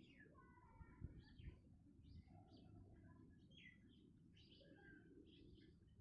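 Backyard birds chirping faintly, with many short chirps and quick falling notes overlapping throughout, over a low background rumble.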